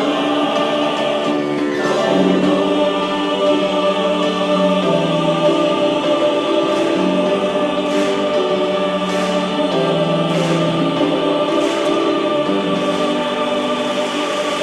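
Choir singing held chords in several voice parts, with the chords shifting every second or two.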